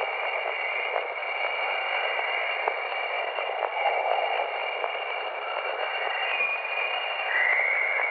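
Jovian chorus: Jupiter's natural radio emissions played back as sound. A steady static-like hiss carries two held whistling tones, with faint ticks and a short rising chirp near the end.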